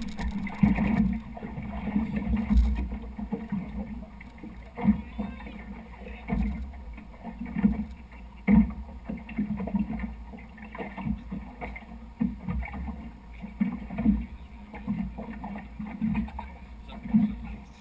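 Rigid inflatable boat running at speed over choppy sea: a steady low rumble broken by irregular thumps, roughly one a second, as the hull strikes the waves.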